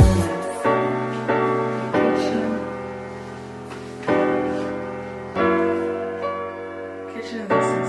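Background piano music: sustained chords struck every second or so, each fading slowly.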